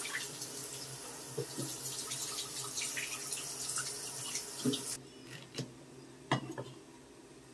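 Tap water running into a stainless steel sink while raw meat is rinsed under it. The water stops sharply about five seconds in, and a few sharp knocks follow: a knife striking a wooden chopping board.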